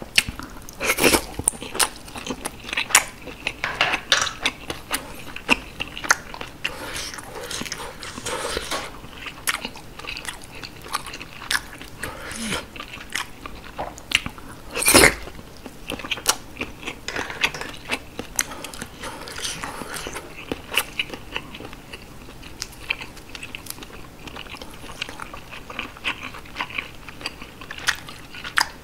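Close-miked chewing and biting of steamed sea snail meat: an irregular run of short, clicky mouth sounds, with one louder click about halfway through.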